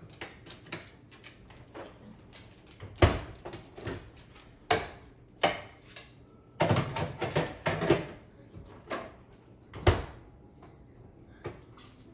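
Irregular clicks and knocks of hard parts being handled and set in place on a built-in coffee machine, with a quick cluster of knocks about two-thirds of the way in and sharp knocks about three and ten seconds in.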